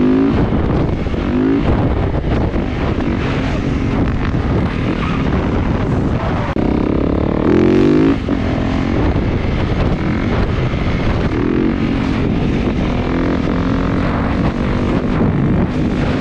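Motorcycle engine running and revving, its pitch rising several times, most strongly about halfway through, with wind buffeting the microphone.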